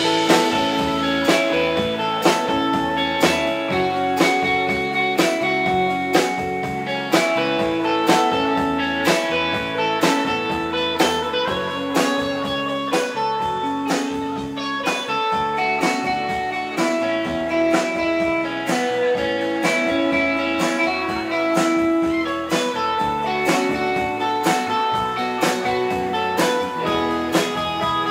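Live instrumental rautalanka: an electric guitar plays the melody over a Premier drum kit keeping a steady beat.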